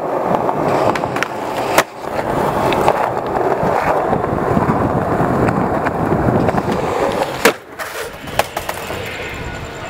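Skateboard wheels rolling over rough concrete while the skater pushes, with a few sharp clicks. About seven and a half seconds in there is a single loud sharp impact, then quieter with a few lighter knocks.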